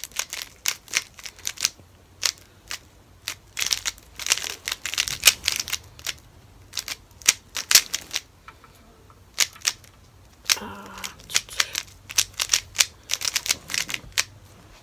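Plastic 3x3 speed cube being turned fast: rapid, irregular clicking of the layers snapping round in quick runs with short pauses between.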